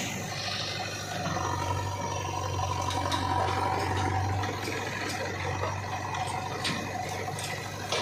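Diesel engine of a JCB 3DX backhoe loader running under work, with a steady whine that sets in about a second in, as the backhoe arm and front bucket move earth. A few sharp clicks and scrapes come through.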